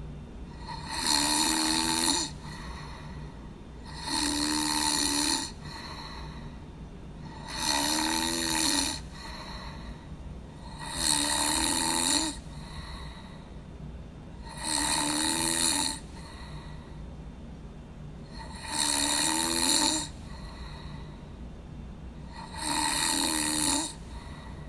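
A person snoring in a slow, even rhythm: seven snores, each about a second long, coming every three and a half to four seconds. A steady low hum continues between them.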